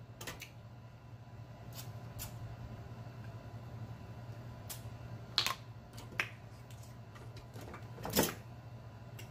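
Close-miked eating sounds as seafood is bitten and chewed: scattered sharp smacks and clicks, the loudest about five and a half and eight seconds in, over a steady low hum.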